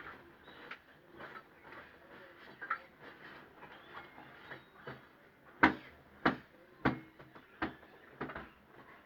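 Knocking and tapping from plumbing fitting work: light scattered clicks and taps, then five loud sharp knocks about two-thirds of a second apart in the second half.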